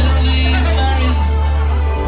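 A live rock band playing a song, with a steady bass line underneath held instrument tones.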